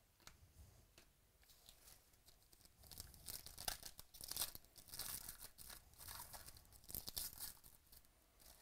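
Foil wrapper of a 2017 Select Football trading-card pack being torn open and crinkled by hand: a run of short, crinkly rips, loudest from about three seconds in until near the end.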